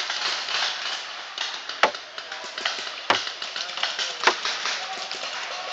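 Paintball marker firing three sharp single shots, a little over a second apart, over a steady hiss.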